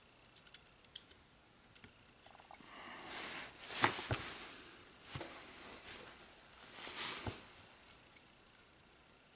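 Faint handling sounds of hand-soldering a circuit board: a few light ticks, then soft hissy rustles in three short swells, with two sharp taps about four seconds in as the loudest moment.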